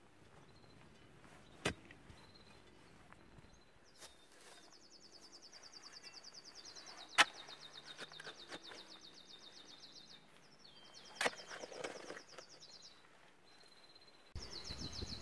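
Digging tools, a steel digging bar and a spade, knocking into the earth of a post hole: a few sharp strikes several seconds apart, the loudest about seven seconds in. A high, fast-pulsing trill runs behind for several seconds in the middle.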